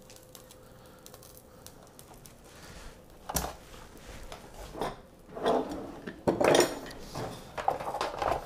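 Dishes and kitchen utensils being handled on a stone counter: a sharp click about three seconds in, then several clinks and knocks, under a faint steady hum.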